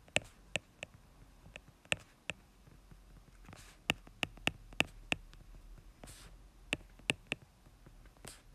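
Stylus tip tapping and clicking on a tablet's glass screen during handwriting: a string of irregular sharp taps, with a few softer brushing sounds between them.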